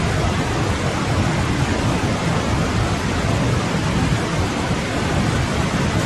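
Winter forest stream flowing, a steady rush of water that is fullest in the low range, with no birdsong.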